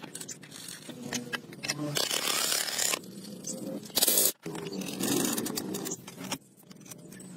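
Clinking and scraping of metal motorcycle parts and tools being fitted together, with a short, loud burst from a pneumatic impact wrench about four seconds in.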